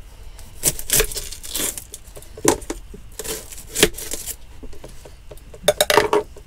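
Dry onion skin being torn and peeled off by hand, with a knife knocking on a plastic chopping board: a string of irregular crackling rips and knocks, several in quick succession near the end.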